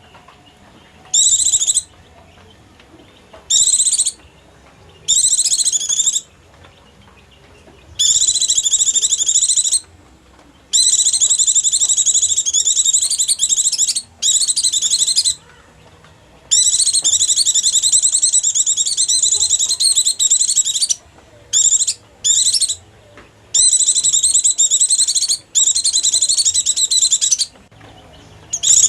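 White-eye (pleci) song played as a trapping lure call: high, rapid twittering in repeated bursts, some under a second and some several seconds long, separated by short pauses.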